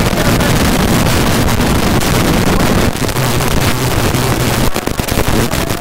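Rally car engine running hard under load on a gravel stage, heard from inside the stripped cabin, with gravel and tyre noise and wind on the microphone. The engine briefly drops off a couple of times in the second half.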